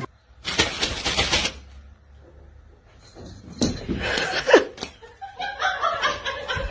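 A short burst of noise about half a second in, then a person laughing in short bursts over the last second or so.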